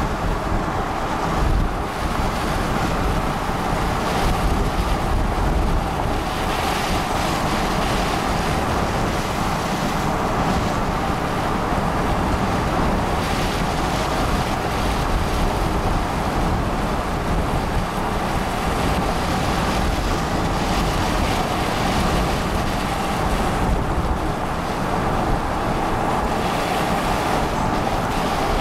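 Steady wind buffeting the microphone at an open car window, over a low vehicle rumble.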